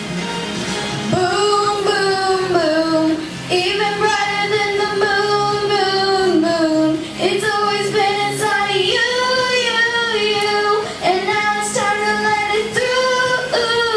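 Child singing a pop song with long held notes over a backing track.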